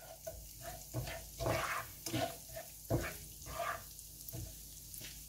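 Ghee, butter and cumin seeds frying in a pan with a light sizzle, while a slotted spatula stirs and scrapes through it in irregular strokes.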